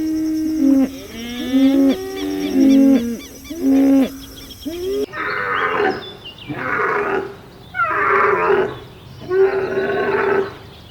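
Animal calls: several overlapping, drawn-out pitched calls, then, after an abrupt change about five seconds in, a run of louder, rougher calls roughly a second apart.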